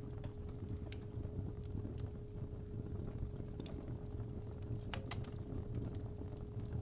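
Fireplace fire crackling and popping over a low rumble, under a steady 417 Hz tone. The loudest pop comes about five seconds in.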